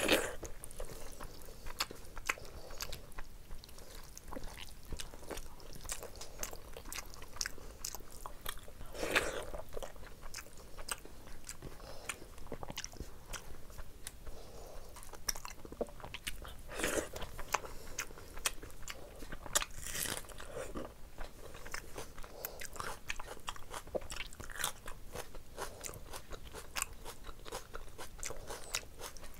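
A person chewing and eating rice and curry by hand, close to the microphone: a steady run of wet mouth clicks and smacks, with a few louder ones.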